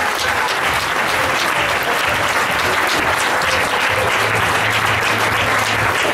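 A crowd of spectators applauding steadily, with dense, continuous clapping.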